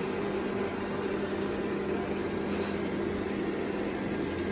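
Steady machine hum with a constant low tone, like an electric fan or motor running without change.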